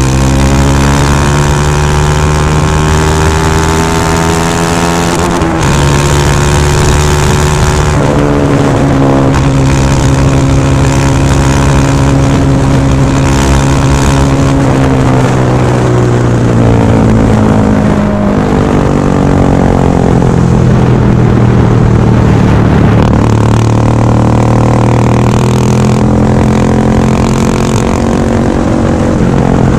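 KTM Duke 390's single-cylinder engine running loud through a Remus S-Flow slip-on exhaust with its silencer insert removed, under way on the road. The pitch climbs and drops with the throttle and gear changes, with sudden shifts about five and eight seconds in, a long fall in the middle and a climb again near the end.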